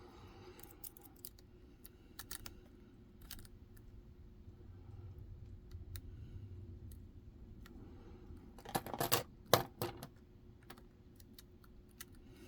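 Lock pick and tension bar working inside a Medeco cylinder's keyway: scattered small metallic clicks and scrapes as the pins are probed, with a cluster of louder clicks about nine seconds in.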